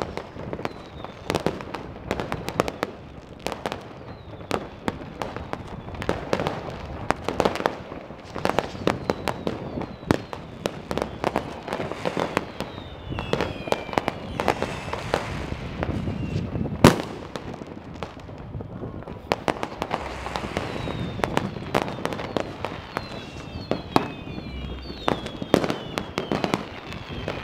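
Fireworks and firecrackers going off at many points at once: an unbroken stream of bangs and crackles, with several whistles falling in pitch and the loudest single bang a little past halfway.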